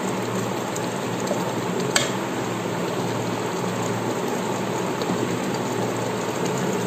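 Chicken biryani gravy simmering in an open pot, bubbling and sizzling as a steady hiss over a faint low hum, with one small click about two seconds in.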